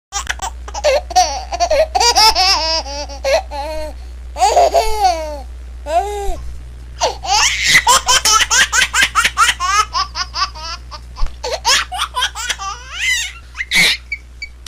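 A baby laughing in bouts of rapid, high-pitched giggles and squeals, with short pauses between bouts, over a steady low hum.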